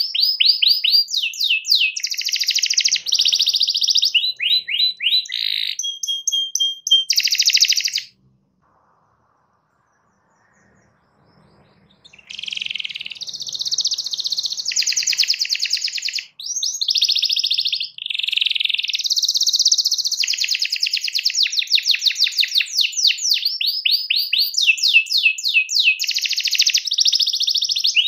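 Domestic canary singing long, high-pitched rapid trills and rolls, one run after another. The song breaks off for about four seconds a third of the way in, then starts again and carries on.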